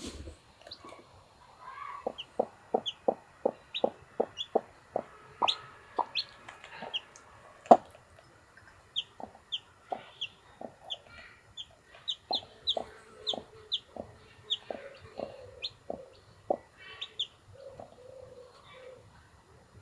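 Brahma hen clucking in a quick even series of short clucks, about three a second, then more slowly. Her day-old chicks peep in short high notes over it.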